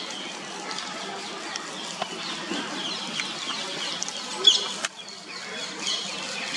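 Small birds chirping: many short, high chirps over a steady outdoor background. One louder chirp comes about four and a half seconds in, with a sharp click just after.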